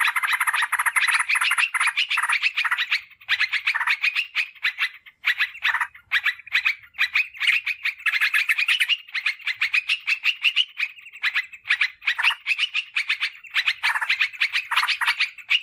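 Yellow-vented bulbul (trucukan) song played as a lure recording: a dense, fast chatter of rapid notes, broken by a few brief pauses.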